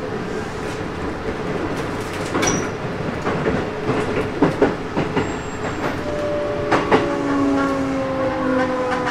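Hokuso Railway 7300 series EMU with Toyo GTO-VVVF inverters braking at low speed: wheels knock over rail joints in a run of sharp clacks, then from about six seconds in the inverter's whine sets in and falls slowly in pitch as the train slows for its stop.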